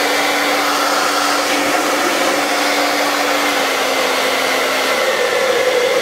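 Remington AC9007 2200-watt hair dryer running at its highest fan speed: a loud, steady rush of air with a faint even hum underneath.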